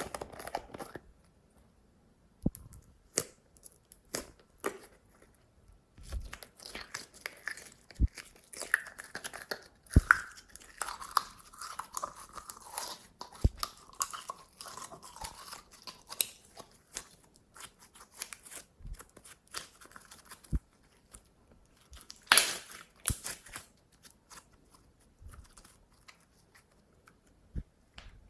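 Glossy slime being squished and stretched by hand: sticky crackling with sharp popping clicks scattered throughout, and a louder burst of crackle about three quarters of the way through.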